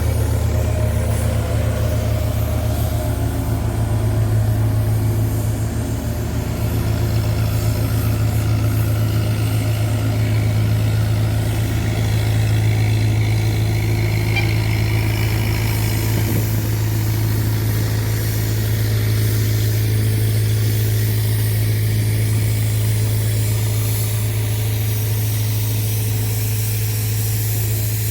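Diesel engine of heavy road-construction machinery running steadily with a constant low hum.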